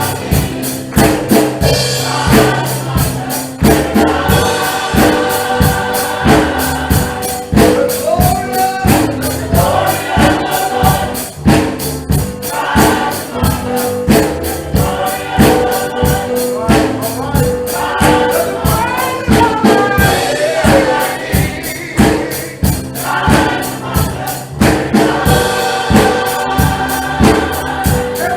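Gospel choir singing with a steady, driving beat of tambourine and percussion.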